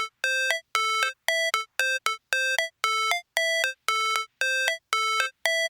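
A short electronic synthesizer melody of bright, buzzy beeping notes, about two notes a second, stepping between pitches like a ringtone.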